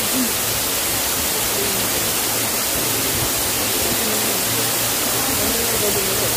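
Steady rush of falling water from a waterfall: an even, unbroken hiss.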